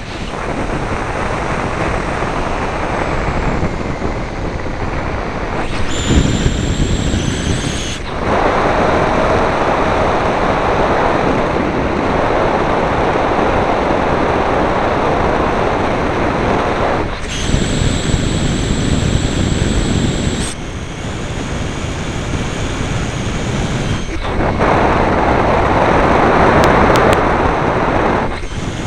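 Airflow rushing over the microphone of a model plane's onboard camera in flight, a dense hiss that swells and eases. A thin high whine cuts in for a few seconds twice.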